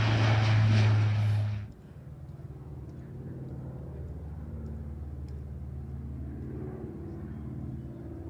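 A Dash 8-400 turboprop airliner running loud on the runway, its propellers giving a strong low hum over heavy noise, cut off abruptly about a second and a half in. After that comes the quieter steady drone of a distant aircraft flying overhead.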